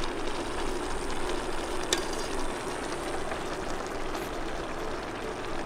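Steady hiss of a cataplana of monkfish, tomato and peas simmering on its burner, with a faint steady hum and one small click about two seconds in.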